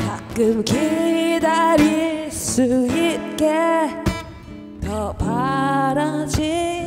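A woman singing held, wavering notes in a blues song over acoustic guitar, performed live.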